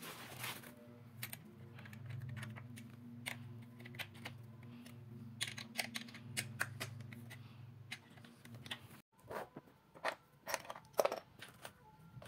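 Light metallic clicks and taps of sliding-wardrobe door hardware being handled and screwed together: a metal roller carriage, its screws and loose steel brackets. A low steady hum sits under the clicks and cuts off about nine seconds in, followed by a quicker run of louder clicks.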